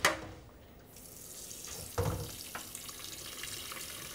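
Water running into a kitchen sink over a colander of drained gnocchi. A sharp metal knock comes right at the start and another dull knock about two seconds in, as the pot and colander are handled.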